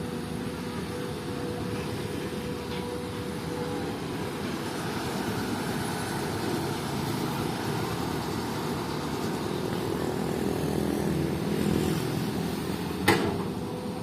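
Komatsu PC-200 excavator's diesel engine running steadily under a constant hum, with one sharp knock near the end.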